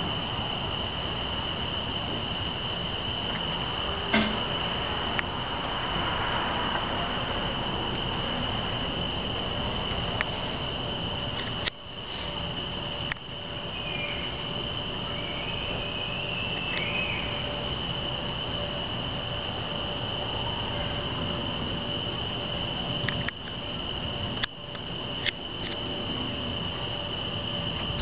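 Night insects, crickets, chirring steadily: a continuous high trill with a faster pulsing chirp above it, over a low steady background hiss. A few sharp clicks break in now and then.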